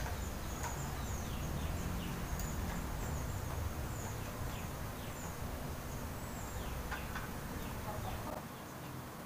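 Birds chirping in the background, short high chirps repeated many times, over a steady low rumble, with a few faint clicks.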